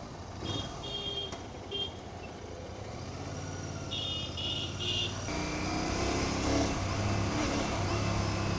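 Royal Enfield Continental GT650's parallel-twin engine on its stock exhaust, pulling away and getting louder as the revs rise, with a step up about five seconds in. Short bursts of high beeping near the start and again about four seconds in.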